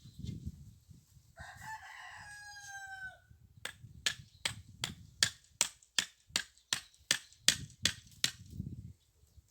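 A rooster crows once, a call of about two seconds ending on a long held note. Then comes a run of about fourteen sharp clicks, roughly three a second, which are the loudest sounds, over soft low rustling.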